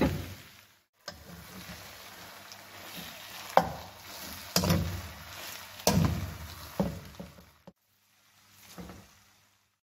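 A spatula stirring and tossing boiled noodles in a wok, knocking and scraping against the pan, with about six sharp knocks a second or so apart.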